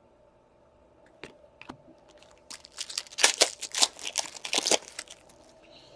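A trading card pack wrapper being torn open and crinkled by hand: a few light clicks about a second in, then a dense run of crinkling and tearing that stops about five seconds in.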